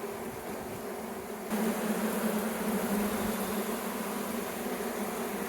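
Honeybees buzzing around an open hive during an inspection: a steady, droning hum that gets louder about a second and a half in.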